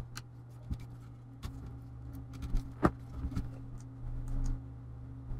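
Scattered light clicks and taps from hands handling a laptop's plastic base and motherboard during disassembly, the loudest nearly three seconds in, over a steady low hum.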